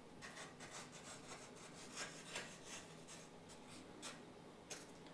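Faint, irregular scratching and rubbing as glue is spread along the edge of a foam part and the foam is handled.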